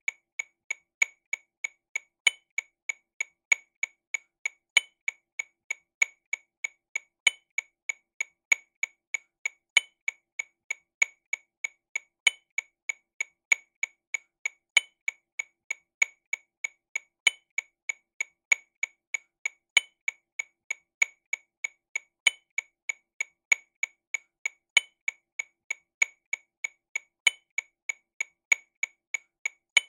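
TAMA Rhythm Watch RW200 metronome click sounding sixteenth notes at 48 BPM, steady clicks about three a second. A higher-pitched accented click falls about every two and a half seconds.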